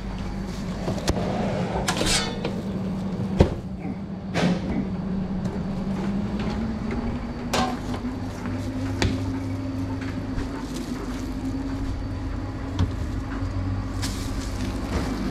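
Knocks and clatter of stainless-steel counter doors and fittings being handled behind a sandwich counter, over a steady machine hum whose tone slowly rises in pitch.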